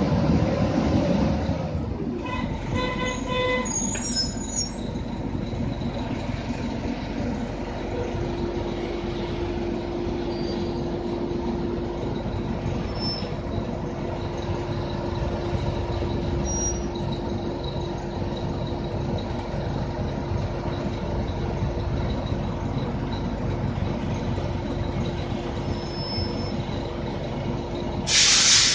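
RTS city bus heard from inside the cabin while riding: steady engine and road rumble with a humming drone. A short run of beeps comes a few seconds in, and a loud burst of hissing air comes near the end.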